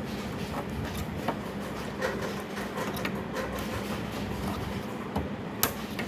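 Steel binding wire being twisted tight through holes in a cracked plastic body, making small scattered clicks and scrapes with one sharper click near the end, over a steady low hum.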